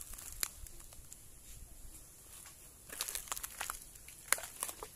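Footsteps crunching through dry leaf litter and twigs, a scatter of faint crackles and snaps with a cluster of louder ones about three to four and a half seconds in.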